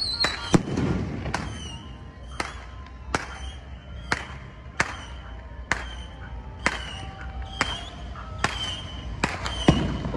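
Fireworks going off in a steady string of sharp bangs, about one a second, each with a brief ringing after it.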